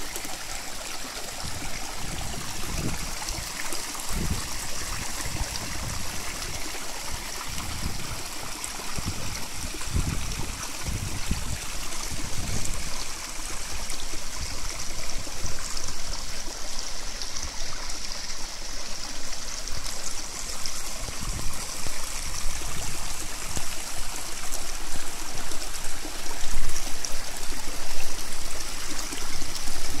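Steady rush of a waterfall, with wind buffeting the microphone in irregular low thumps that grow louder near the end.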